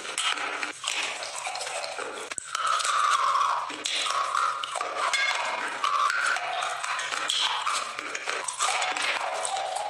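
Close crunching and chewing as hard, brittle sticks resembling slate pencils and slabs resembling baked clay are bitten, with many irregular cracks and crackles. A faint steady hum sits underneath.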